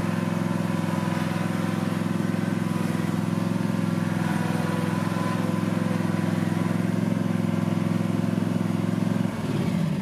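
Cub Cadet XZ5 L127 zero-turn mower's Kawasaki V-twin engine running steadily as the mower drives. About nine seconds in, the engine note falls and the sound drops.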